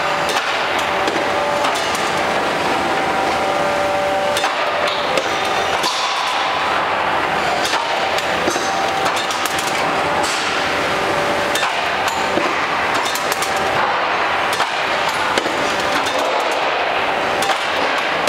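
CNC angle punching line running: a continuous machine hum with a few steady tones, broken every few seconds by sharp metallic knocks from the punching machine working the steel angle.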